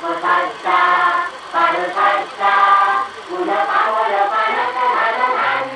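Music with choral singing: voices singing a melody in short phrases.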